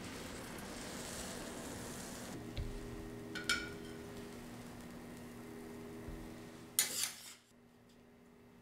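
Food sizzling on a teppanyaki griddle. The sizzle dies down about two seconds in, leaving a steady hum, two sharp metal clinks of a spatula on the plate, and a brief loud hiss about seven seconds in.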